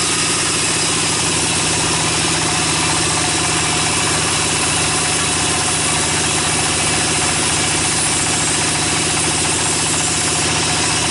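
Band sawmill running with a loud, steady drone that holds without letup.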